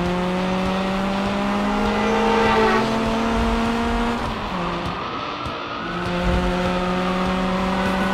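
Race car engine sound effect accelerating, its pitch climbing steadily. It drops about four seconds in, like a gear change, then climbs again.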